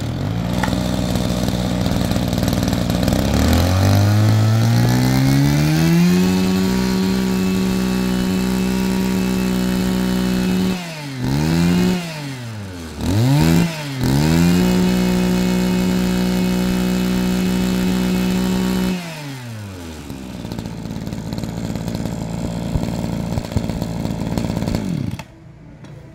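Mitsubishi TL231 small two-stroke brush-cutter engine starting on its pull cord and idling, then revved up to high speed and held, with two quick throttle drops and recoveries in the middle. It falls back to idle and the sound cuts off near the end.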